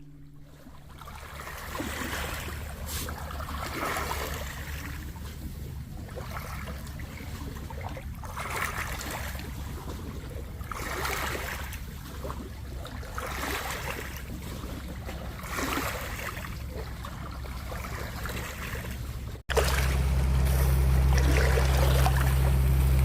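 Lake water lapping in small waves, a swell of splashing about every second and a half to two seconds, over a steady low rumble. Near the end the sound cuts abruptly and the low rumble becomes much louder.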